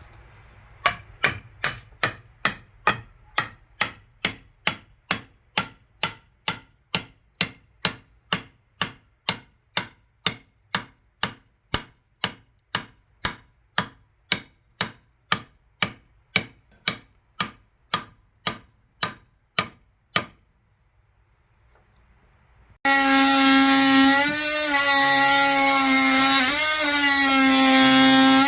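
Rhythmic strokes of a hand tool working wood, about two a second. After a short pause near the end, a loud power tool starts running, its pitch dipping and rising.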